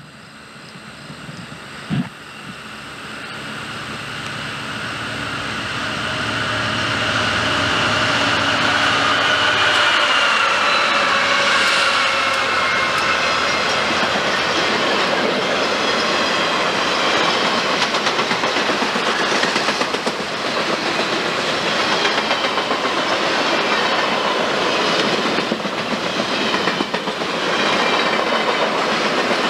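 Conrail diesel-electric freight locomotives approach and pass close by, their engine sound growing louder and dropping in pitch as they go by. Then a long train of trailer-carrying flatcars rolls past, with a steady clickety-clack of wheels over the rail joints and a high whine or squeal held above it. A single sharp click is heard about two seconds in.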